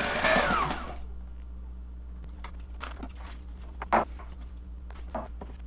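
Electric sewing machine running, then stopping under a second in, its motor winding down in a falling whine. A few light clicks and taps follow, the sharpest about four seconds in.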